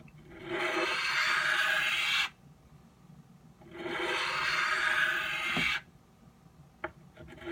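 Knife blade scraping across an oiled Norton bench stone in two long sharpening strokes of about two seconds each, with a short pause between them.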